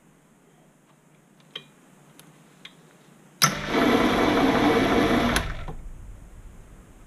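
Proxxon PD 250/e mini lathe started for a threading pass: its motor and geared lead-screw drive run loudly for about two seconds, then are switched off and wind down. A couple of faint clicks come before it starts.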